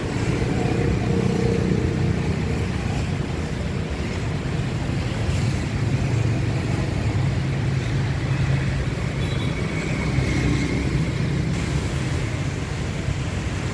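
Steady low rumble of passing street traffic.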